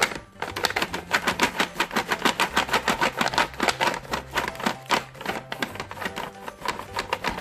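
Crayon scribbling hard on paper in quick back-and-forth strokes, about seven a second, a dry scratching rattle, under faint background music.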